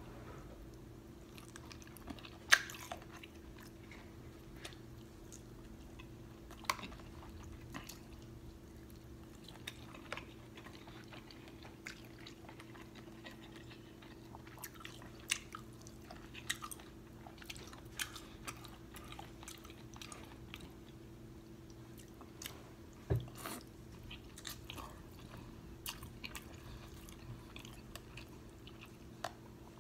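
Close-up eating sounds of a person chewing sauce-covered shrimp from a seafood boil: wet chewing, with scattered sharp smacks and clicks. The loudest comes about two and a half seconds in. A faint steady hum runs underneath.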